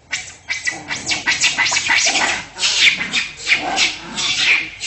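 Animal calls: a rapid, uneven run of short, noisy cries, about three a second.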